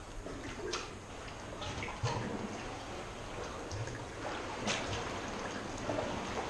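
Kayak paddle strokes in water: steady dripping and trickling off the blades, with a few sharper splashes as the blade dips in, inside a flooded steel ship hull.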